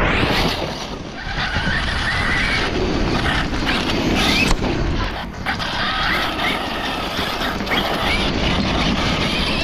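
Tekno MT410 electric RC monster truck driving on dirt close by: its electric motor whines up in short rising bursts several times as it accelerates, over the noise of its tyres on the loose dirt.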